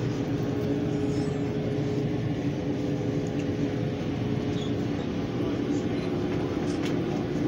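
Indistinct voices of a group of people over a steady low mechanical hum with a couple of held tones, and a few faint clicks.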